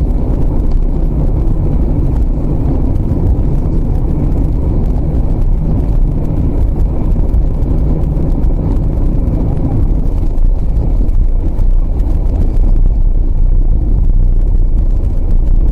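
Steady low rumble of engine and road noise inside a moving car, picked up by a dashcam microphone.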